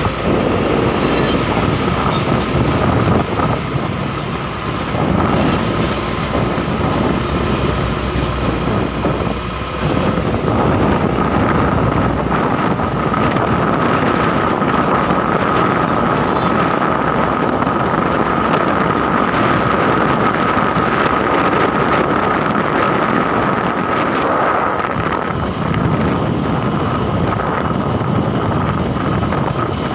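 Hino truck under way at speed: the engine runs with heavy road and wind noise and a steady high whine.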